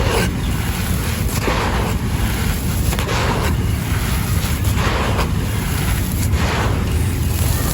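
Dry, white, grainy claypot clay being crumbled, giving a run of crunches every half second to a second over a steady low rumble.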